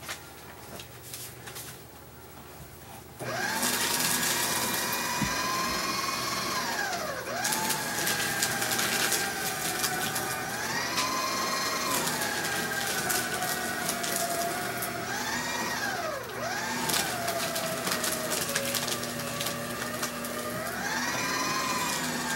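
Electric paper shredder starting about three seconds in and running with a steady motor whine, its pitch sagging and recovering several times as sheets of paper are fed through it.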